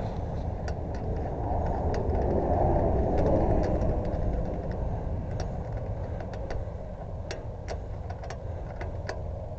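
Road traffic rumble, swelling and fading about two to four seconds in as a vehicle passes, with scattered light clicks over it.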